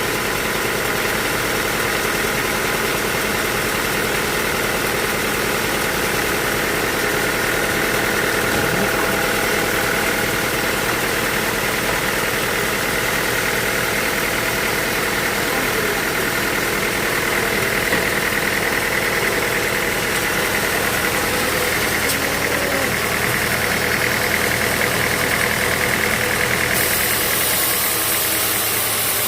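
Sawmill machinery running steadily, a continuous engine or motor drone with a constant hum.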